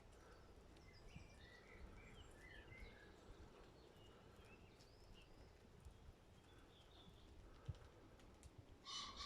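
Faint birdsong: small birds chirping in short quick phrases over a low outdoor rumble, with a brief louder noise right at the end.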